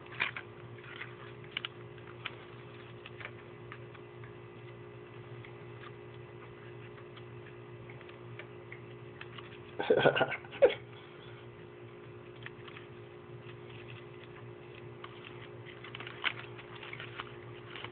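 Faint taps and scrapes of a plastic stick prodding a scorpion among substrate, artificial plants and the walls of a plastic enclosure, with a louder cluster of knocks about ten seconds in and more clicks near the end. A steady low hum runs underneath.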